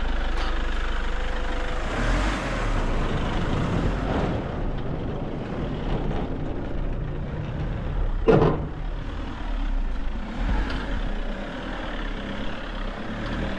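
A motor vehicle's engine running as the vehicle reverses, with one sharp knock about eight seconds in.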